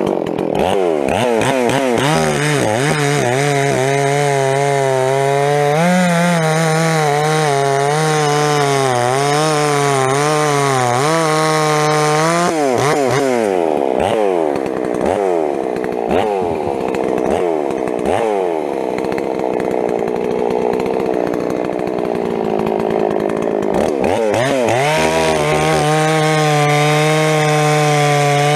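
Ported Stihl chainsaw cutting firewood rounds at full throttle, its pitch wavering under load in the cut. From about halfway it dips and recovers repeatedly as the chain comes out of the wood, then settles back to a steady pitch in a fresh cut near the end.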